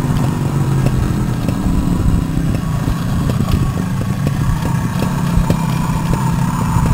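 Vintage two-stroke single-cylinder trial motorcycle running at low, steady revs as it is ridden slowly away.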